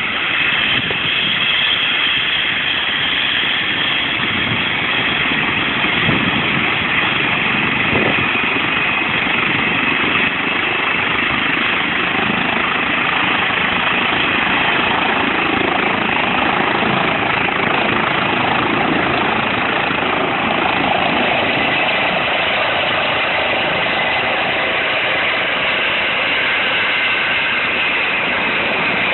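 Eurocopter EC135 air-ambulance helicopter's turbines whining and rotor running on the ground, then lifting off and climbing overhead near the end.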